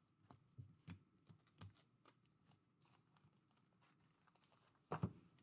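Near silence: room tone with a few faint scattered clicks and taps, and a slightly louder click about five seconds in.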